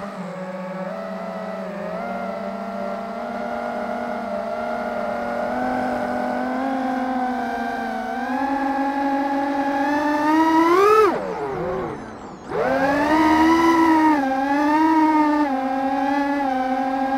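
FPV quadcopter's electric motors whining as heard from the onboard camera. The pitch climbs slowly, then rises sharply to a peak about eleven seconds in. It drops away almost to nothing for a second and a half, then swells back up and wavers with the throttle.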